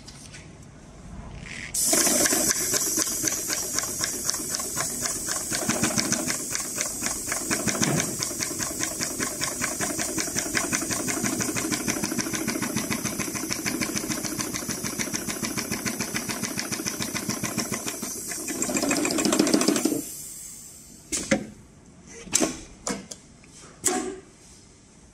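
FIBC700 heavy-duty two-needle double-locked-stitch sewing machine stitching a seam through thick woven geotextile, with a fast, even stitching rhythm. It starts suddenly about two seconds in and stops abruptly about twenty seconds in. A few separate short knocks follow.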